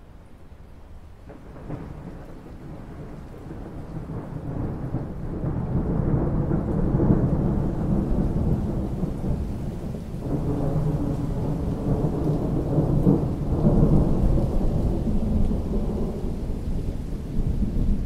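Long roll of thunder over falling rain. The rumble builds from about a second in, swells to two peaks and eases off a little near the end.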